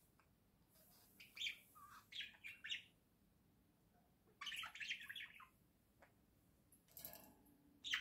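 Pet budgerigar chirping in three short bouts of quick, high chirps, with quiet pauses between them.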